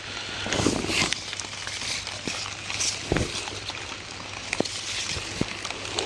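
Rustling and crackling of strawberry leaves and black plastic sheeting being handled, with scattered small clicks and a soft thump about three seconds in.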